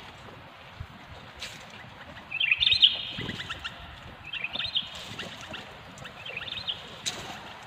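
Sooty-headed bulbul calling: three short bursts of quick, chattering chirps, the first about two seconds in and the loudest.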